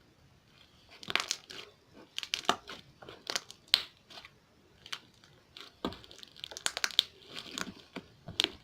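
Slime being squeezed and stretched by hand, giving clusters of sharp, wet clicks and pops as trapped air pockets burst. It starts about a second in and keeps going in quick bursts.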